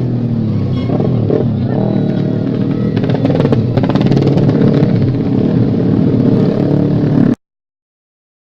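Racing motorcycle engines revving hard, the pitch rising and falling as they accelerate, then cutting off abruptly about seven seconds in.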